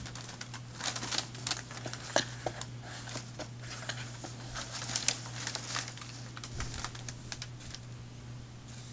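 Packing paper crinkling and rustling inside a cardboard box as a cat burrows into it, in quick irregular crackles that thin out near the end.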